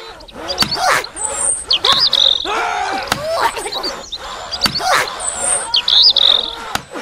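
High chirping and trilling calls, with sharp knocks now and then.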